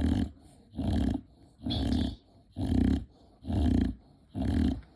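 Rapid, rattly snoring in an even rhythm, about one snore a second, six in a row.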